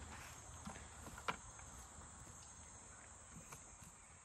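Insects chirring steadily at a high pitch, with faint scattered rustles and clicks from hands sifting soft rotted sago pith; one sharper click about a second in.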